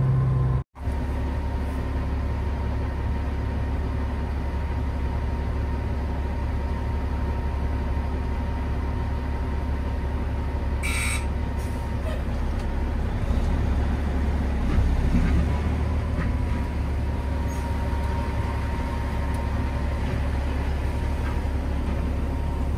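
Peterbilt 379 big-rig diesel engine running steadily, heard from inside the cab as the truck moves slowly. A short hiss comes about eleven seconds in.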